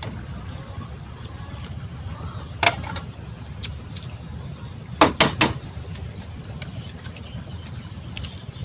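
Balut eggshells being tapped and peeled: a sharp crack about two and a half seconds in, three quick cracks a little after five seconds, and faint ticks of shell in between. Under it all runs a steady low rumble.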